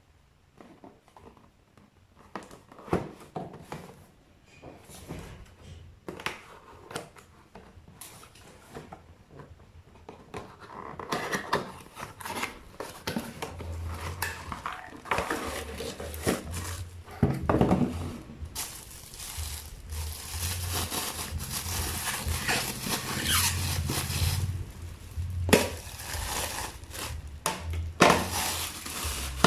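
Handling noise from unboxing a lunchbox: scattered clicks and knocks at first, then from about a third of the way in, steadier rustling and scraping of packaging, with plastic parts knocking together.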